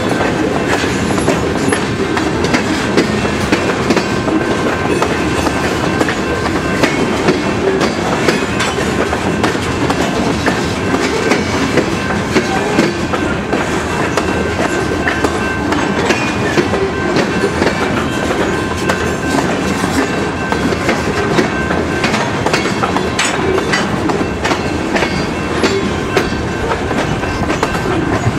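Freight train cars rolling steadily past, their wheels clattering and clicking over the rails over a steady high tone.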